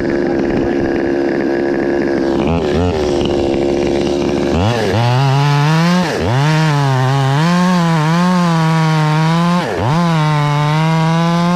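Stihl MS 200 top-handle two-stroke chainsaw idling steadily for the first four and a half seconds or so, then throttled up to full revs and cutting into the oak stem. The engine pitch wavers under the load of the cut and sags briefly twice.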